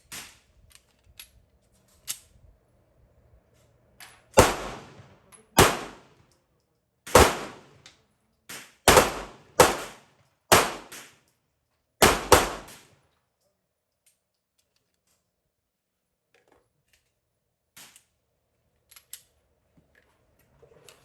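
Pistol fire: a string of about eleven shots, unevenly spaced, some in quick pairs, stopping about two-thirds of the way in. A few fainter shots are heard before and after the string.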